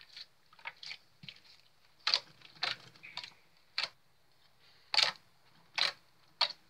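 Red-tinted clear slime being squeezed and pressed by hand, giving a string of sharp, irregular pops and clicks as air bubbles in it burst.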